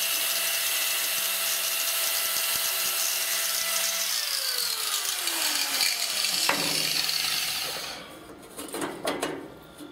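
Angle grinder running at full speed on the steel air pipe, then released and spinning down with a falling whine from about four seconds in. Near the end, a few light metal clinks as the pipe connector is knocked into the notch.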